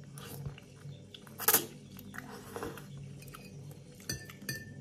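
A person eating vegetable ramen: quiet chewing with scattered light clinks of a utensil against a bowl, and one sharper noise about a second and a half in.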